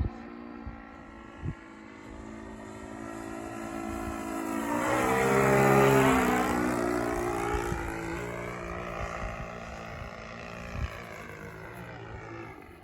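Saito 125 four-stroke glow engine of a radio-controlled model plane flying past: it grows louder as it approaches, passes about six seconds in with a sharp drop in pitch, then fades as it flies away.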